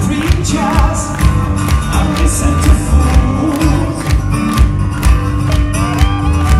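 Live acoustic rock: two acoustic guitars strummed in a steady rhythm, with a lead vocal singing over them.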